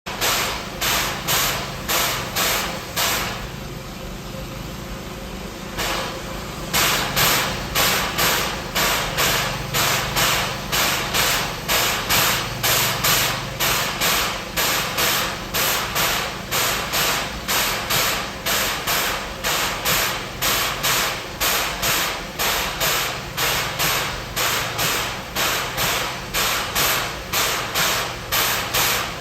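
Exhaust chuffing of an 1899 Heisler geared steam locomotive working a train, a steady beat of about two chuffs a second. A few seconds in the beat stops for about three seconds, leaving a steady hiss, then picks up again.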